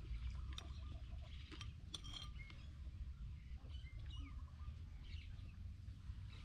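A metal spoon clinking a few times against a bowl, with the small sounds of someone eating soup, and birds chirping in the background over a steady low rumble.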